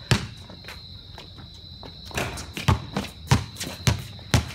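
Basketball dribbled on a concrete driveway: one bounce at the start, then a steady run of bounces about every half second from about two seconds in.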